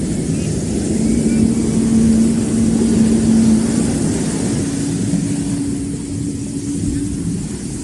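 Low rumbling drone of a stage intro sound effect through the concert sound system, with one held tone about a second in and a slightly higher held tone midway.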